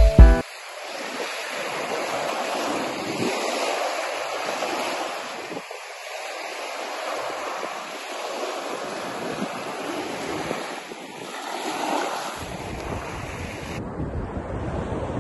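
Surf breaking and washing up on a beach: a steady rushing that swells and eases. From about twelve seconds in, wind buffets the microphone with a low rumble.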